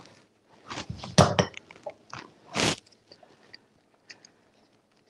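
Lemon half crushed in a hand-held citrus squeezer: three short crunchy squelches in the first three seconds, the loudest about a second in, then a few faint clicks.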